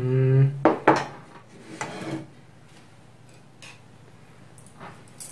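A short vocal sound, then a small ceramic bowl is set down on the table with a couple of light knocks, followed by a soft rustle and a few faint clicks of kitchenware being handled.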